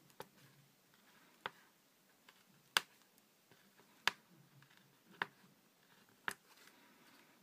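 Six faint, sharp clicks, about one a second, as a pin is pushed through a paper template into cardboard to prick dots marking guide lines.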